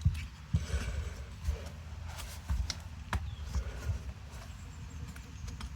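Scattered light knocks and clicks of small parts and tools being handled on a workbench, over a low steady hum.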